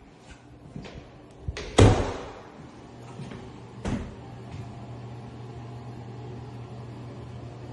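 An interior door bangs once about two seconds in, with a short ringing tail, and a lighter knock follows about two seconds later. A low steady hum continues underneath after the bang.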